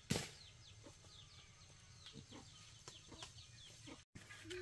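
Faint chickens: many short, high, falling peeps, about three or four a second. One knock comes right at the start.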